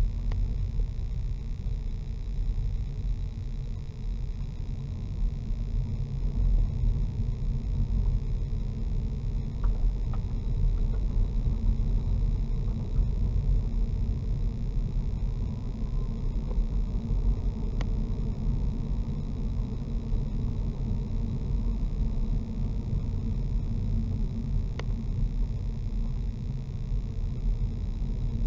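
Low, steady rumble of a car's engine and tyres heard from inside the cabin while driving, with two faint clicks in the second half.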